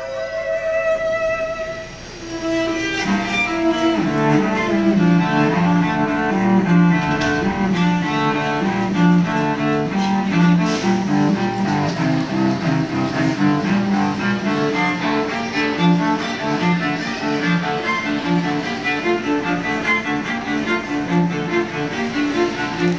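Cello playing solo. A held high note dies away about two seconds in, then a quick, even run of short bowed notes starts about a second later and carries on steadily.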